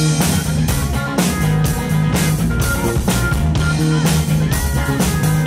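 Live rock band playing: a Stratocaster-style electric guitar over a drum kit keeping a steady beat of about two hits a second.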